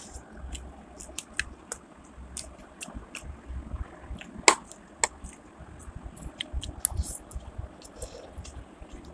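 Eating sounds of a person chewing and slurping chow mein noodles: wet mouth smacks and scattered sharp clicks, the loudest about halfway through.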